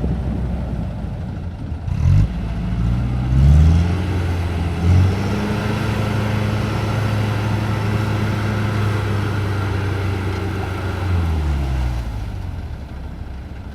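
A motor vehicle engine climbing in pitch in a few steps, running steadily at speed, then dropping back near the end.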